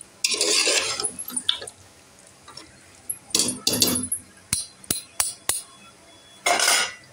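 A metal ladle stirring wet beef curry in a pressure cooker: two stretches of wet scraping, then four sharp taps of metal on metal, and another short scrape near the end.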